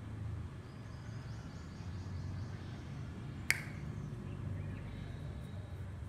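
A single sharp click about three and a half seconds in, over a low steady rumble.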